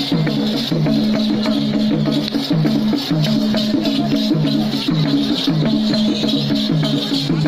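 Live Nepali folk dance music: a low tune switching back and forth between two held notes in a steady repeating pattern, over drum and percussion strokes keeping a steady beat.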